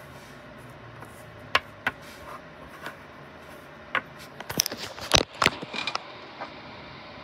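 Wooden blocks handled on a hard tabletop: scattered sharp clicks and knocks, bunching into a quick run of taps about halfway through, over a faint steady hiss.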